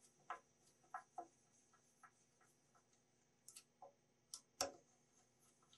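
Irregular light clicks and taps, about eight of them, from a screwdriver working a brush clamp back into place on an Ametek 5.7-inch vacuum motor's brush holder; the sharpest tap comes about four and a half seconds in.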